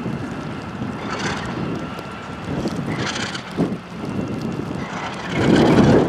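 Alco RS11 diesel-electric locomotive's turbocharged V12 engine running under load as it pulls tank cars, with wind on the microphone. It swells louder near the end.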